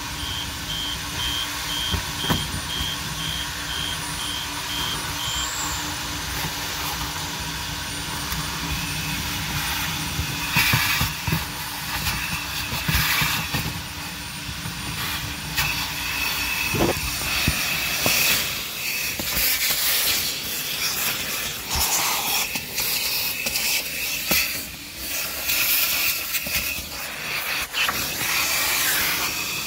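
Vacuum cleaner running with a steady hiss as its nozzle is worked over a car's interior and floor carpet, with irregular rattling and crackling from about 18 seconds in. A reversing beeper sounds for the first few seconds.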